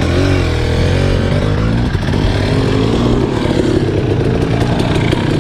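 Enduro dirt bike engine running, its pitch rising and falling as the throttle is worked.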